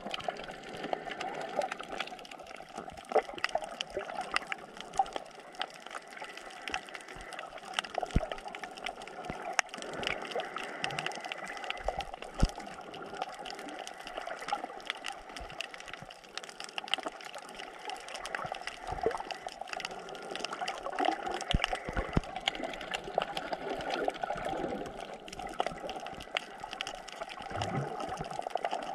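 Underwater recording of water moving and gurgling, with many small clicks and crackles scattered throughout.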